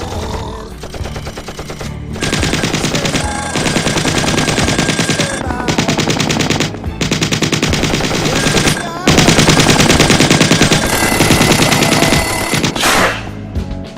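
Mechanical alarm clock bell ringing, its hammer rattling rapidly against the bell. It rings in several long bursts separated by short breaks.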